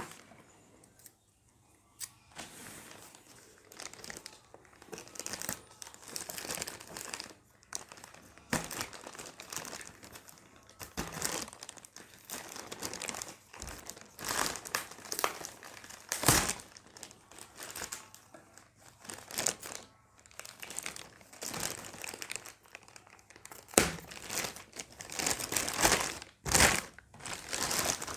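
Packaging being opened by hand: crinkling and crumpling with bits of tearing, starting about two seconds in, with occasional sharp knocks from handling.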